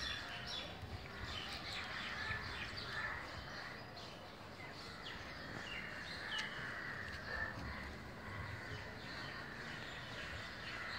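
Outdoor ambience: scattered short bird chirps over a steady low background rumble.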